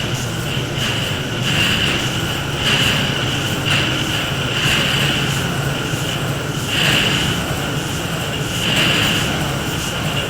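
Industrial noise drone: a dense, steady low hum under a hissing band that swells every second or two.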